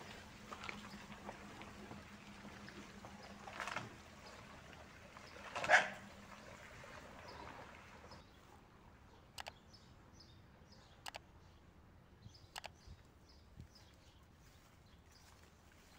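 A cat calling out briefly twice, about four and six seconds in, the second much louder. A few sharp clicks follow later.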